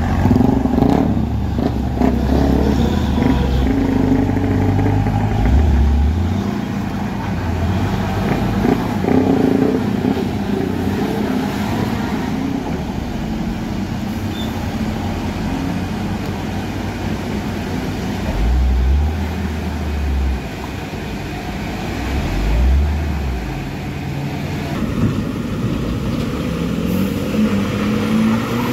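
Heavy diesel trucks labouring up a steep, wet hairpin climb: a deep engine drone that swells and fades several times, mixed with motorcycle engines and general road traffic.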